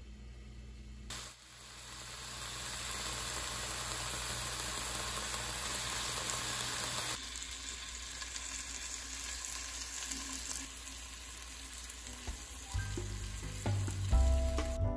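Bacon-wrapped rice rolls sizzling as they fry in a nonstick pan in their own bacon fat, with no added oil. The sizzle starts about a second in, swells, and goes on a little more quietly after a cut; background music comes in loudly near the end.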